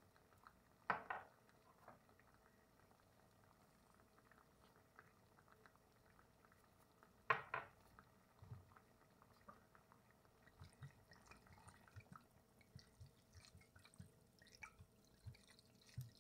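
Faint kitchen handling sounds: two short clinks with a brief ring, about a second in and again about seven seconds in, then faint scattered ticks and crackles.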